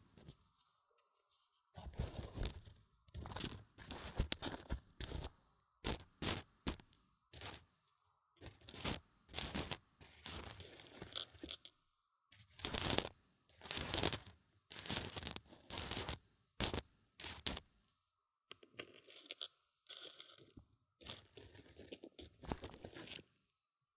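Mung beans stirred and scraped around inside a binaural microphone's silicone ear, heard very close up as crackling crunches. They come in bursts of a second or two with short pauses between.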